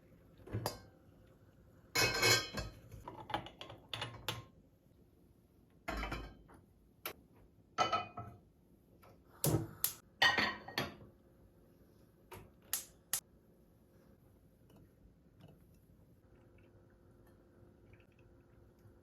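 Dishes and cutlery being handled in a kitchen: a string of irregular clinks and clatters, bunched in the first two-thirds, over a faint steady hum.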